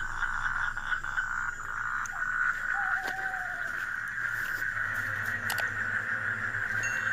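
A steady nighttime chorus of calling frogs or insects, a dense, even trill that holds throughout, with a short whistled call about three seconds in and a couple of faint clicks.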